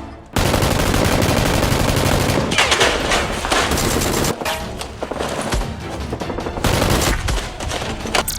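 Rapid automatic gunfire in long bursts: a continuous stream of shots from about half a second in for some four seconds, then shorter bursts near the end, over background music.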